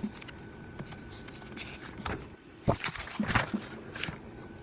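Paper instruction sheets and kit packaging being handled: scattered rustles and light knocks, mostly in the second half.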